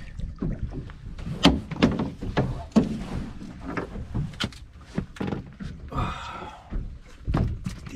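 Irregular knocks and thuds on a small fishing boat, about a dozen sharp ones spread over the seconds, with a short higher-pitched sound about six seconds in.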